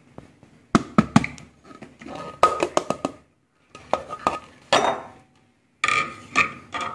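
Short clusters of clicks and knocks from a steel mixer-grinder jar and its plastic lid being handled and opened after grinding. Silent gaps fall between the clusters.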